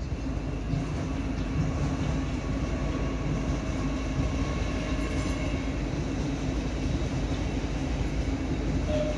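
LNER Class 800 Azuma train running through the station, a steady rumble of wheels on rails with a faint hum running through it.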